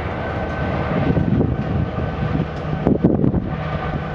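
Norfolk Southern GP38-2 diesel locomotive, with an EMD 16-645 two-stroke V16, running steadily as it approaches, the engine drone low and even. Wind buffets the microphone in gusts about one and three seconds in.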